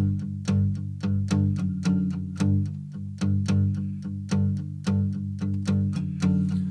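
Instrumental intro of a Japanese pop song: a steady run of picked notes, each struck and fading, over a sustained bass line.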